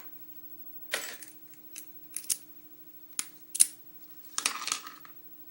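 Small metallic clicks and taps as a pin-tumbler lock cylinder and screwdrivers are handled, just after the cylinder's retaining clip has been pried off. Scattered single clicks, the loudest about three and a half seconds in, then a short rattle near the end, over a faint steady hum.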